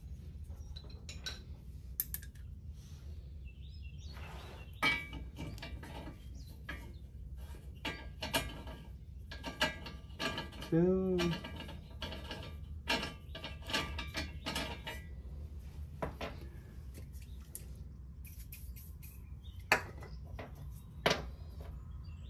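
Scattered metallic clinks and clicks of a socket and steel nuts being worked onto the transmission crossmember bolts, over a steady low hum. A brief hum of voice comes about halfway through.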